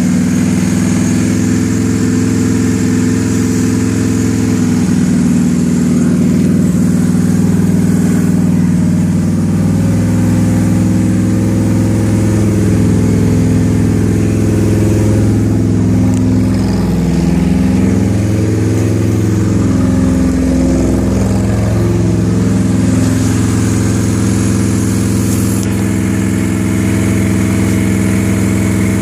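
Vehicle engine idling, its idle speed wavering briefly about halfway through; the owner suspects a vacuum leak.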